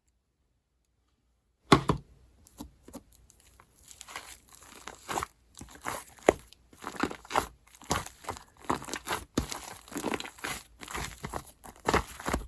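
Slime being squished and pulled, making irregular crackling and popping that starts with a sharp pop about two seconds in and grows busier.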